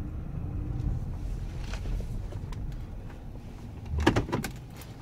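Low rumble of a Dodge Grand Caravan minivan driving slowly, heard from inside the cabin, with a short loud clatter about four seconds in.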